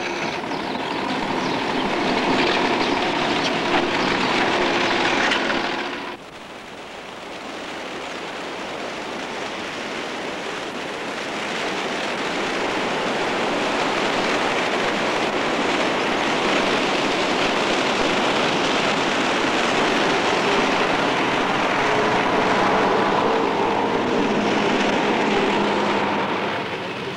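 MAN bus running, with engine and road noise. The sound cuts off abruptly about six seconds in, then a steady drive noise slowly builds and holds.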